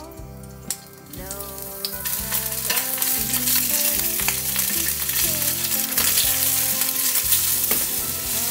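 Ham and then egg frying in oil in a rectangular tamagoyaki pan. The sizzle starts about a second in and grows louder.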